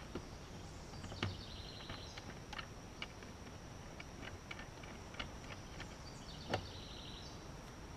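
Small clicks and two louder knocks, about a second in and near the end, with short runs of fast ticking, as hands work the automatic coop door controller and its winding gear to snug the door up. A faint steady high whine runs underneath.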